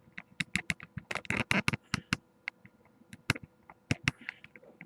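Irregular sharp clicks and rattles of something loose being handled and tightened by hand, denser about a second or two in.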